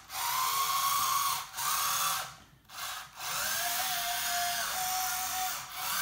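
The electric track-drive motors and gearboxes of a 1/14-scale metal RC tracked skid steer loader whine as it drives and turns. The whine comes in several stop-start runs, its pitch rising and falling as each run starts and stops.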